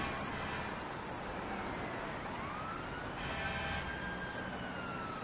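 Street ambience: steady traffic noise with a faint siren wailing, its pitch slowly rising and falling. A brief pitched sound a little after three seconds in.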